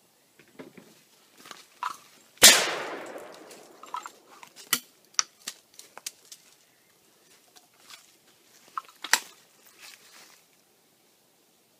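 A single 12-gauge shotgun shot about two and a half seconds in, its report ringing away over a second and a half. After it come scattered sharp clicks and faint rustling.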